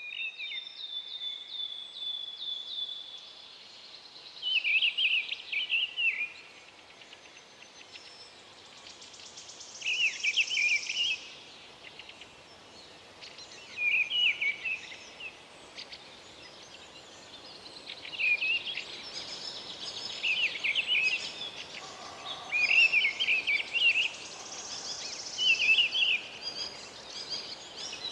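A songbird singing short, quick warbling phrases, repeated every three to four seconds, with fainter chirping from other birds behind it.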